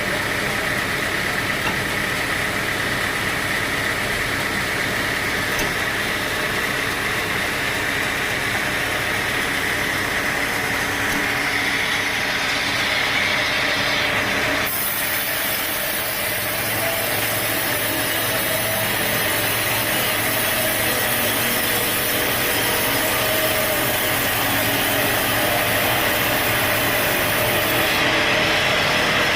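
Sawmill at work: the saw cutting timber over the steady running of its engine. The sound changes abruptly about halfway through.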